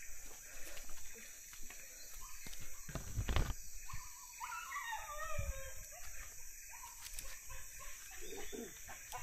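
A dog whining, a run of high, wavering calls from about four seconds in, with a fainter whine near the end. A low thump comes about three seconds in.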